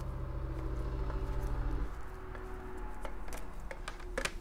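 Rubber-sheathed power cord being handled and coiled, with light rustling and a few sharp clicks and taps of the cord against the plastic foot pedal and mat, over a steady low hum.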